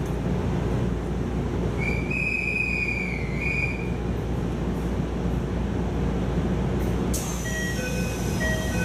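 Japanese train's doors at a station: a steady low rumble with a brief high whine about two seconds in, then about seven seconds in a sudden hiss as the doors work, followed by a multi-note electronic door chime of short beeps at several pitches.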